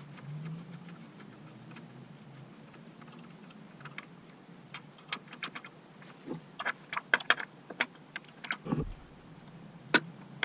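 Tools and bike parts being handled: a run of light clicks and taps starting about four seconds in, busiest around seven seconds, with one dull thump near nine seconds and a last sharp click near the end.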